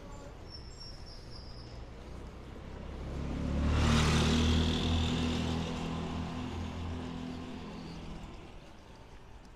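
A motor vehicle driving past on the cobbled street: its engine hum and tyre noise swell to a peak about four seconds in, then fade away over the next few seconds.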